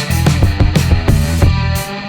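Rock music with distorted electric guitar and a driving drum beat.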